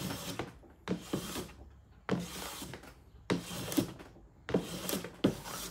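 Small hand plane being pushed in short, repeated strokes across the face of a maple and cherry cutting board, taking very fine shavings. There are about five hissing passes, roughly one a second, each with a light knock as the plane is set down or lifted.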